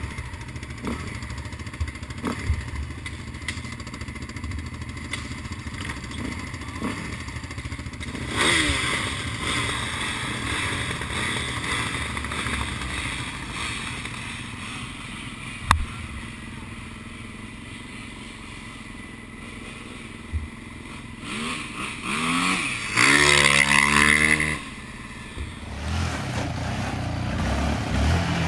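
Quad bike (ATV) engines idling close by, with revs rising about eight seconds in. A loud burst of revving, its pitch sweeping up and down, comes near 23 seconds and is the loudest sound.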